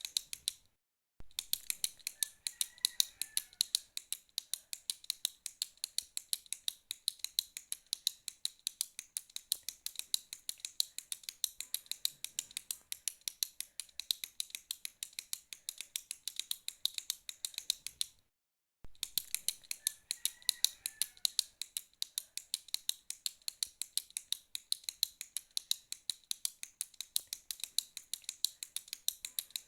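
Retractable pen clicked over and over in a fast, even rhythm, about four to five sharp clicks a second. The clicking stops briefly twice, about a second in and again after about 18 seconds.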